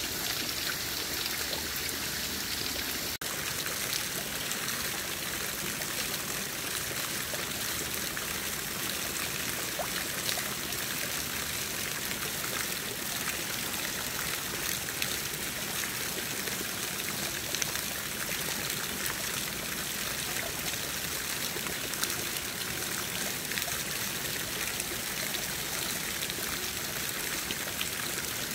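Shallow water trickling steadily over stones and plants, with a few small splashes and ticks as boots wade and hands pick greens in it.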